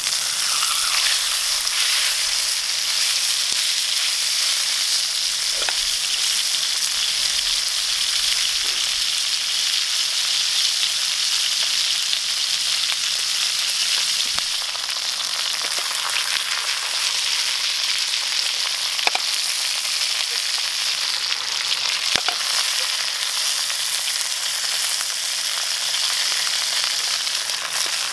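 A slab of meat sizzling steadily in a frying pan over a wood fire. A few faint pops sound now and then over the sizzle.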